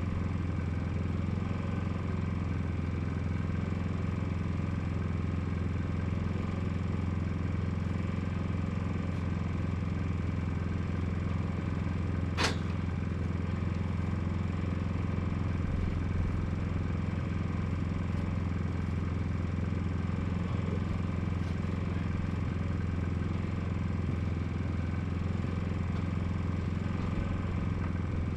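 An engine running steadily at a constant speed, an even low hum, with a single sharp click or knock about halfway through.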